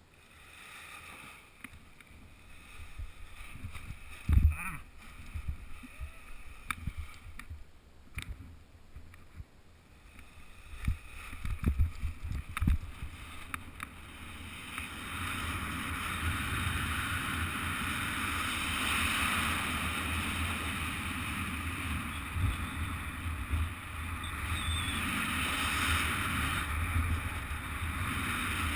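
Wind rushing over the microphone on a speedwing flight. The first half brings uneven low buffets and a few sharp thumps; about halfway in it builds into a steady, louder rush.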